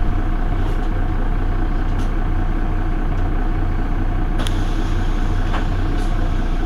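Mercedes-Benz Citaro city bus standing at a stop with its engine idling: a steady low rumble with a faint whine held on one pitch, and a couple of faint ticks in the second half.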